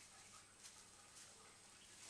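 Near silence, with a few faint, soft rustles of a thin plastic bag as kittens scuffle on it.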